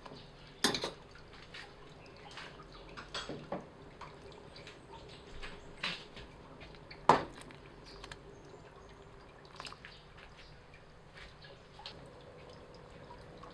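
Pot of tom yum broth bubbling quietly on the stove, with a few sharp clicks against the pot, the loudest about seven seconds in.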